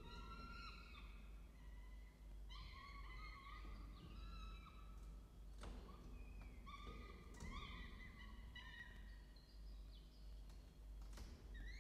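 Peregrine falcon chick calling in repeated runs of short, faint, high notes, the begging calls of a nestling being fed by its parent. A couple of sharp clicks fall in the middle.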